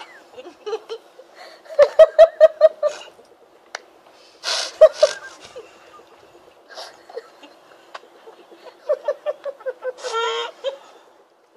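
Stifled laughter from people holding a mouthful of water: muffled giggles through closed lips in quick pulses, about six a second, in two fits, with a short hiss of breath between them.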